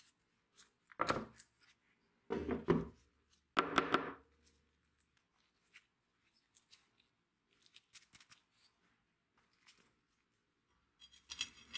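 Gloved hands handling a bar clamp and metal sword parts on a workbench. Several short knocks and clatters come in the first four seconds, then scattered faint clicks and taps, and a quick run of rapid clicks near the end.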